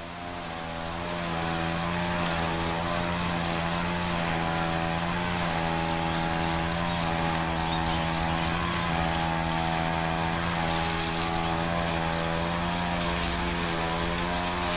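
A steady, low engine drone with a strong hum and a rushing hiss over it, swelling up over the first second or two and then holding level.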